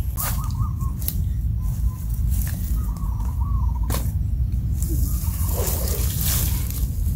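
Wind rumbling on the microphone, with a small bird's short warbling calls several times and a few sharp clicks and snaps of dry sticks being handled at a smoky campfire.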